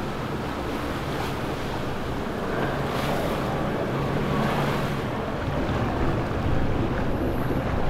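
Boat engine running steadily under a rush of churning water, with wind buffeting the microphone; the sound grows a little louder in the second half.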